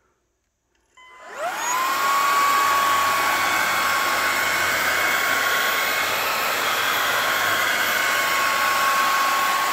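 Bissell IconPet Pro cordless stick vacuum switching on about a second in, its motor whine climbing quickly to a steady high pitch, then running steadily with a loud rush of air.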